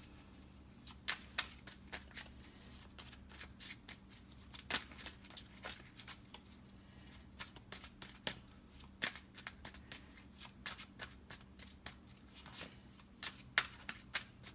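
A deck of tarot cards being shuffled by hand: irregular flicks and snaps of the cards, over a faint steady hum.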